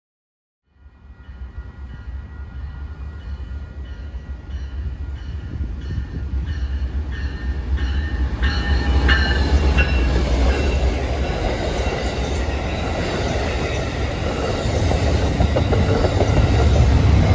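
Amtrak diesel passenger train approaching and passing close by: the locomotive's low engine rumble builds steadily for several seconds, then the passenger cars roll past on the rails, getting louder near the end.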